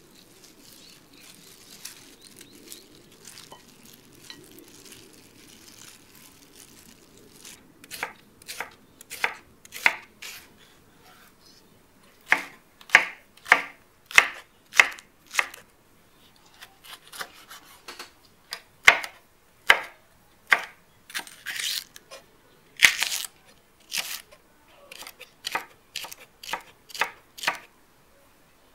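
Faint rustling at first, then a kitchen knife chopping vegetables on a cutting board: sharp separate knocks from about eight seconds in, coming closer together later, with a few longer slicing strokes among them.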